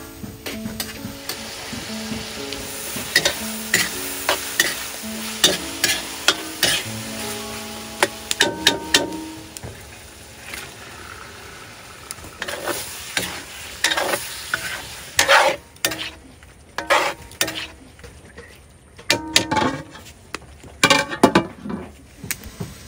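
A metal ladle scraping and clacking against a steel wok in irregular strokes while food sizzles and fries in it over the fire.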